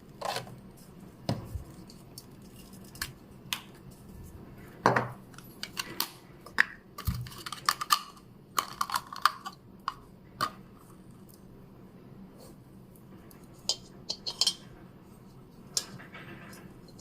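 Irregular sharp clicks and light knocks of small hard objects, thickest in the middle of the stretch, over a faint steady low hum.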